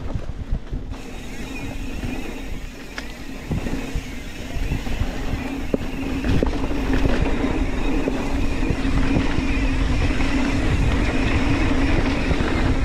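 Mountain bike riding fast down a dirt singletrack: tyres rolling and the bike rattling over the ground, with wind on the microphone. A steady buzz grows louder from about halfway through.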